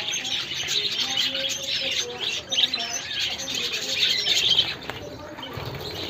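A colony of budgerigars chattering with many overlapping high chirps, with some wing fluttering; the chatter thins out and gets quieter about five seconds in.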